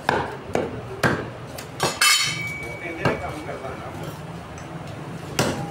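Butcher's cleavers chopping beef ribs on wooden log chopping blocks: about seven sharp chops at an irregular pace. The loudest chop comes about two seconds in and is followed by a thin metallic ring that fades over about two seconds.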